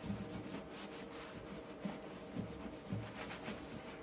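Scotch-Brite pad scrubbing a steel car firewall panel wet with PB Blaster, a quick run of hissy back-and-forth strokes that thin out in the second half.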